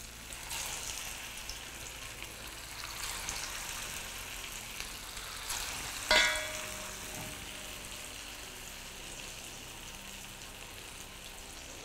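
Bean kebabs shallow-frying in a little hot oil in a frying pan: a steady, even sizzle. A single sharp, ringing clink about six seconds in.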